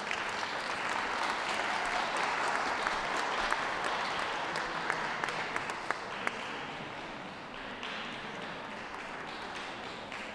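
Audience applauding, with single claps standing out, loudest over the first six seconds or so and then tailing off.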